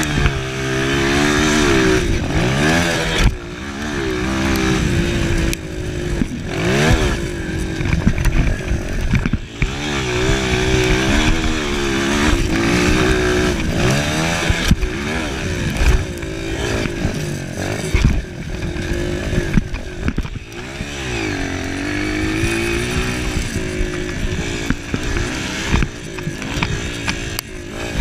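Honda CRF230 single-cylinder four-stroke dirt bike engine heard on board while riding a motocross track, revving up and dropping back over and over as the rider shifts gears and backs off for corners. Sharp knocks and rattles come through now and then as the bike goes over bumps.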